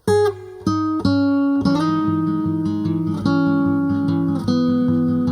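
Background music of plucked guitar notes over a steady low bass pulse, starting abruptly at the outset.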